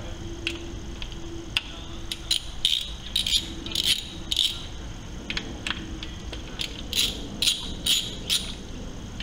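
Ratchet wrench clicking in short irregular strokes with light metallic rattling as the throttle body mounting bolts on a Porsche 996 flat-six are worked loose. The clicks come in clusters, busiest a few seconds in and again near the end.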